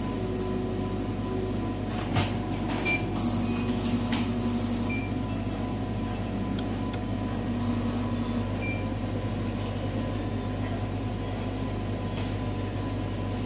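Cornley K-Lite 3 electrolyte analyzer aspirating a QC sample: its pump runs twice, for a second or two each time, with a hiss and a low motor tone, and the analyzer gives several short, high beeps. A click comes about two seconds in, all over a steady machine hum.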